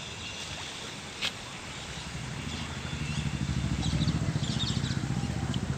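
A motor vehicle's engine with a fast low throb swells from about two seconds in, is loudest around four seconds, and eases off near the end, like a vehicle passing by. Small birds chirp briefly over it.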